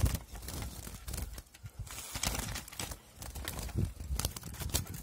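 Caged European goldfinches fluttering and scrabbling on the perches, with irregular knocks and rattles against the cage.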